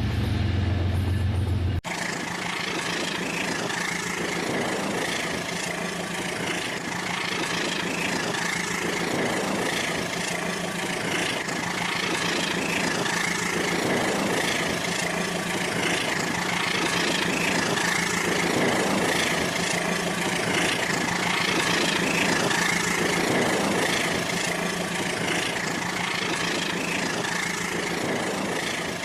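Small electric motor and gears of a battery-powered toy train running steadily on its plastic track, a whirring drone that swells about every two seconds. It follows an abrupt cut, about two seconds in, from a low humming tone.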